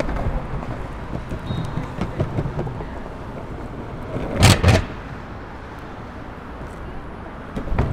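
Longboard wheels rolling over pavement slabs: a steady rumble with small clicks from the slab joints. About halfway through comes a loud short knock and rattle as the board crosses rough kerb paving, then the roll runs quieter and smoother.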